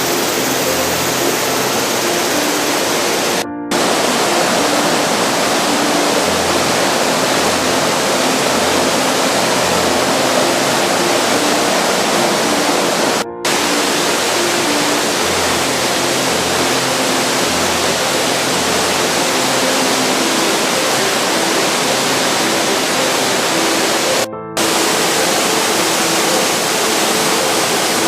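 Waterfall rushing in a loud, steady roar of falling water, cut off for a moment three times where clips are joined.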